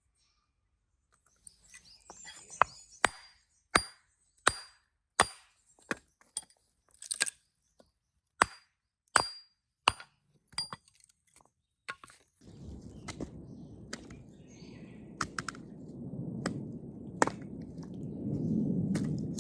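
Firewood being chopped and split: about a dozen sharp, separate strikes, roughly one every half second to second. About twelve seconds in, a steady low rushing noise starts, with a few sharp cracks over it.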